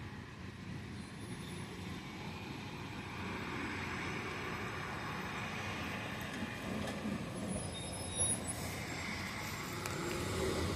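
Heavy diesel harvest machinery running steadily, growing gradually louder as it draws closer.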